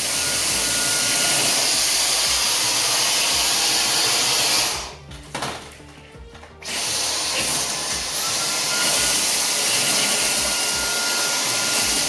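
Dyson Omni-glide cordless stick vacuum running on a hard floor: a steady motor hiss with a thin high whine. The sound drops away for about two seconds around the middle, then comes back and the whine settles in again.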